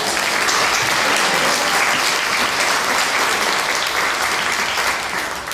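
Theatre audience applauding after a sung number, dense steady clapping that begins to die away near the end.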